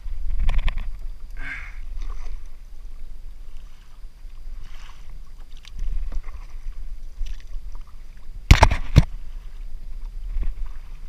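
Wind rumbling on the microphone and water lapping around a plastic sit-on-top kayak, with two or three sharp knocks on the hull about eight and a half seconds in, the loudest sound.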